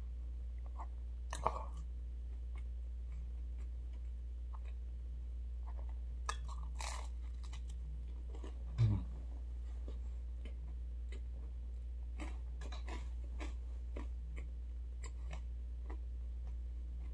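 Close-up chewing of Domino's pizza crust: soft crunches and wet mouth clicks, with a steady low hum underneath. A sharp click comes about a second and a half in, and a brief louder low sound about nine seconds in.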